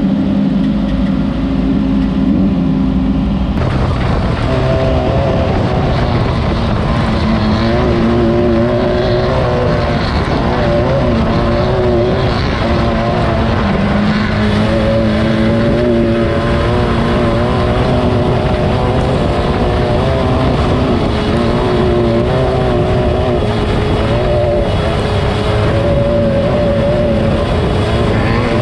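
Class 9 off-road race car's engine running hard at speed, its pitch rising and falling continuously as the throttle is worked, over a dense steady noise. The sound changes character about three and a half seconds in.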